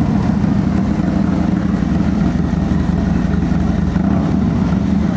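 Harley-Davidson Low Rider ST's Milwaukee-Eight 117 V-twin idling steadily and loud through a freshly installed Bassani Super Bike 2-into-1 exhaust.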